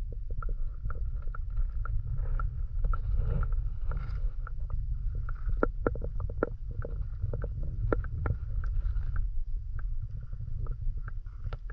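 Underwater sound picked up by a camera submerged in a seaweed-filled rock pool: a steady low rumble with many irregular sharp clicks and ticks.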